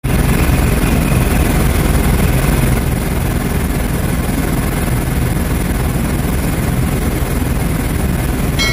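Helicopter cabin noise heard from inside during flight: a loud, steady rush of rotor and engine noise.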